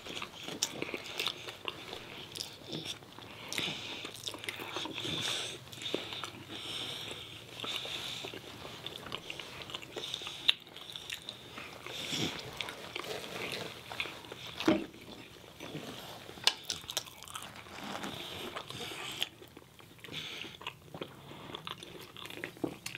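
Eating sounds picked up close to the microphone: irregular biting, crunching and chewing, with many small clicks throughout.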